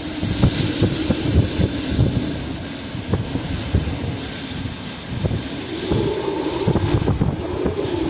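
Hurricane-force wind in a hurricane's inner eyewall: a continuous rushing, train-like din, with irregular gusts buffeting the microphone.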